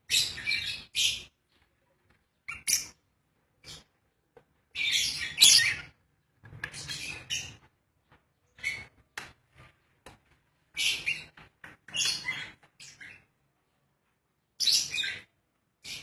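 Lovebirds calling in short, high-pitched chirps and squawks that come in irregular bursts with brief pauses between them.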